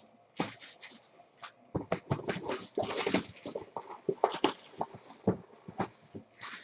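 Hands tearing open trading card packs: a run of crinkling and crackling wrapper sounds with cards being handled, densest in the middle few seconds.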